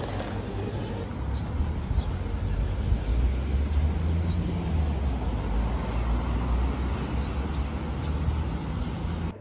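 Steady low rumble of vehicle traffic with a haze of street noise; it cuts off suddenly at the end.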